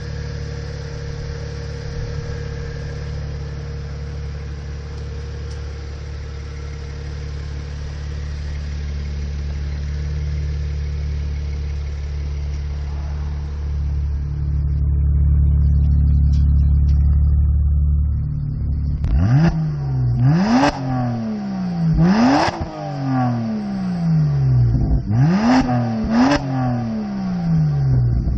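BMW with 3-inch aftermarket downpipes, its exhaust idling steadily. About two-thirds of the way through, the engine is blipped in five quick free revs, each rising sharply and falling back to idle.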